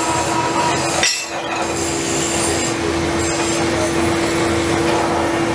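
Pillar drill running in a metal workshop: a steady motor hum over dense mechanical noise, with a short break about a second in.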